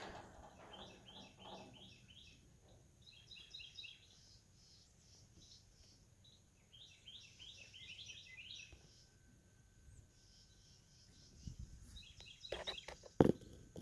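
A songbird singing: several quick runs of short, repeated chirping notes with pauses between them. Near the end come a few knocks, one of them a sharp, loud knock.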